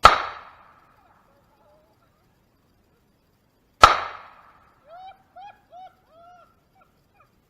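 Two pistol shots about four seconds apart, each a sharp crack that fades within about half a second. About a second after the second shot comes a quick run of four short, arched calls.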